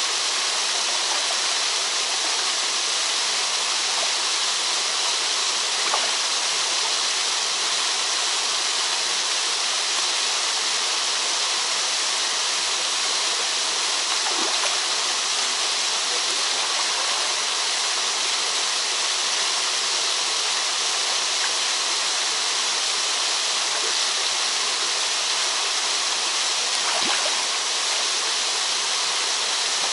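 Steady rush of two small waterfalls splashing into a shallow rocky pool, an even hiss of falling water.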